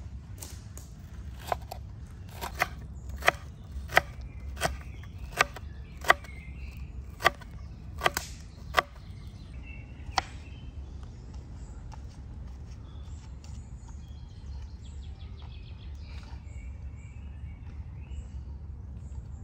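Knife chopping on a cutting board: about a dozen sharp, slow strokes over the first ten seconds, then it stops. Birds chirp faintly over a steady low background rumble.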